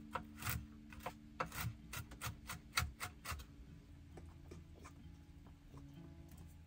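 Kitchen knife chopping nuts on a wooden cutting board, quick even strokes about three or four a second, stopping about three and a half seconds in; after that only faint taps of a spoon stirring batter in a ceramic bowl.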